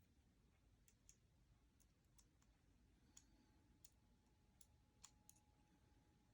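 Near silence with faint scattered clicks, about nine of them, as small hardware is handled during a pepper mill kit assembly. A faint steady tone comes in about halfway through.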